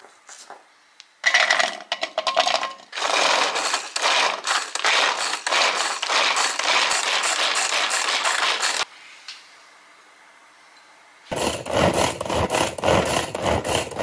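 Pull-cord manual food chopper being yanked again and again, its blades spinning and rattling the chopped vegetable around the clear plastic bowl in quick repeated strokes. The pulls pause for a couple of seconds, then a second run of rapid pulls starts near the end.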